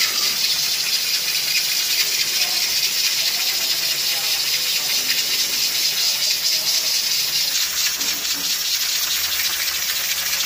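Stovetop aluminium pressure cooker hissing steadily as steam escapes past the weight on its lid vent: the cooker is up to pressure.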